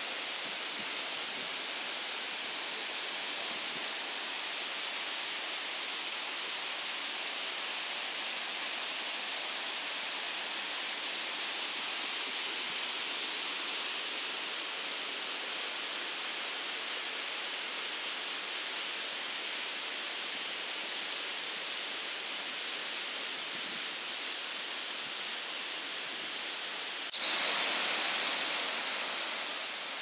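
Fukuroda Falls, a large tiered waterfall, rushing with a steady hiss of falling water. Near the end it turns suddenly louder and brighter, then eases off a little.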